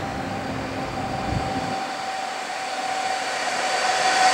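Electric multiple unit pulling into the platform: a steady whine over the rush of the wheels on the rails, getting louder as it comes closer.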